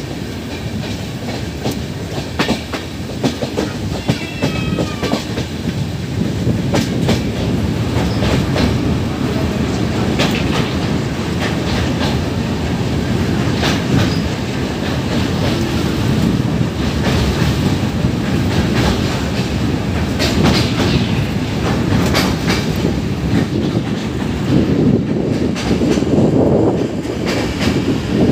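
Passenger train running at speed, heard from a coach window: steady rumble and wind with the clickety-clack of wheels over rail joints. The rumble grows louder and heavier in the second half as the train crosses a steel girder bridge.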